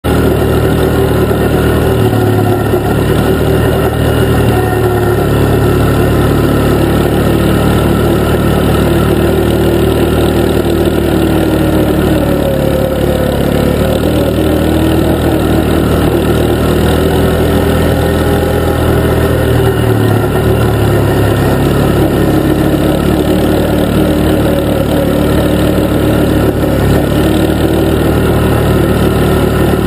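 ATV engine running while riding along, with a steady drone whose pitch rises and falls gently as the throttle changes.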